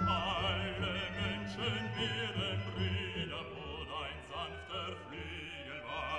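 Background classical music with an operatic voice singing in vibrato.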